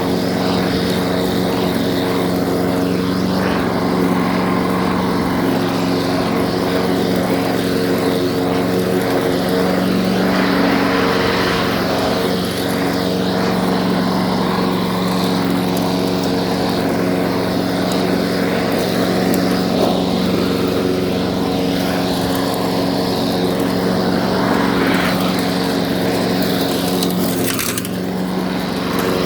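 Torres lawn mower's small petrol engine running steadily, with a brief dip in level near the end.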